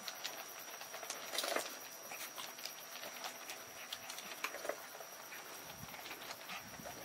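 Puppies' paws and claws pattering and scuffling on a stone wall, with scattered light clicks and a louder scrabble about one and a half seconds in.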